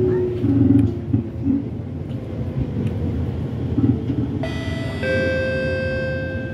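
Rumble of an R151 metro train running on the track, with a faint whine that falls slowly in pitch over the first second or so. About four and a half seconds in, a two-note electronic chime sounds over the train's public address system, ahead of the station announcement.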